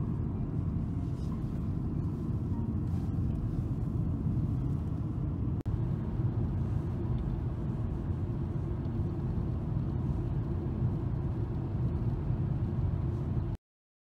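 Steady low rumble of a car driving at road speed, heard from inside the cabin: tyre and engine noise. There is a brief dropout about halfway through, and it cuts off suddenly near the end.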